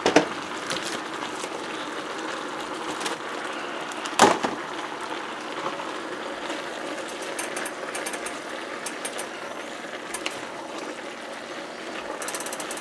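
Stir-fry of noodles and vegetables sizzling steadily in a wok over high heat, with a wooden utensil knocking and scraping against the pan as it is stirred; two sharper knocks, one right at the start and one about four seconds in.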